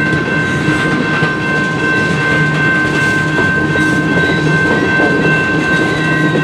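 Freight train's tank cars rolling steadily past on the rails with a continuous rumble and wheel clatter. A steady high ringing tone is held over it throughout.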